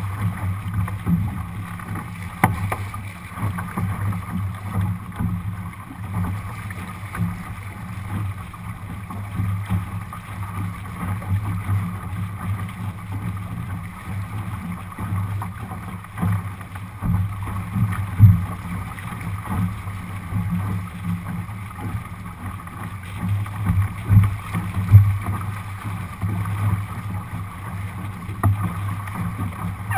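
Steady low wind buffeting on the microphone mixed with water rushing along the hull of a Lightning sailboat sailing upwind, rising and falling with gusts, with a couple of sharper louder bumps in the second half.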